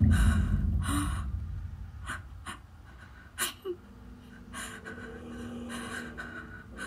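A deep boom that hits at once and fades over about three seconds, followed by scattered breathy gasps and a faint low drone, an eerie effect laid into the narration.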